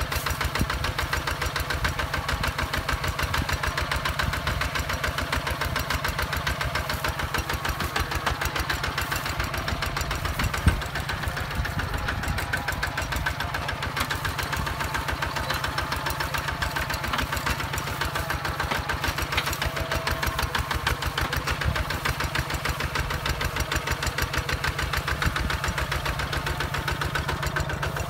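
Hinota HG Gold 155 DI walking tractor's single-cylinder diesel engine chugging steadily under load while pulling a plough through soil. One sharp knock stands out about ten seconds in.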